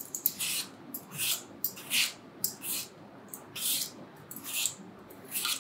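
Y-peeler scraping the skin off a Granny Smith apple in short strokes, about two a second.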